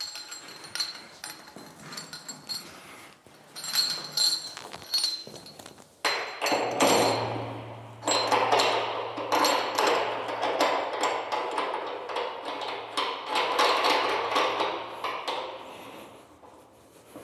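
Metal hose couplings and tank valve fittings clinking and ringing as a beer hose is handled and connected. About six seconds in, a loud rush of liquid starts, beer gushing and splashing onto the wet cellar floor, with a steady low hum beneath it.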